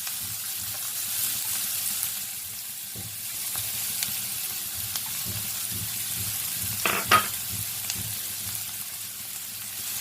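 Chopped onions sizzling steadily in hot oil in a pan while being stirred. There are a couple of sharp knocks about seven seconds in.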